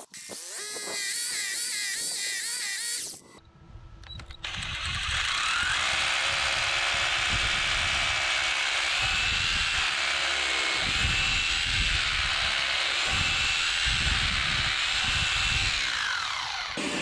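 Electric hammer drill boring into concrete with a 6 mm masonry bit. A wavering whine for the first three seconds, a brief pause, then a long steady drilling run with a low pulsing hammer action; the motor winds up as the run starts and winds down near the end.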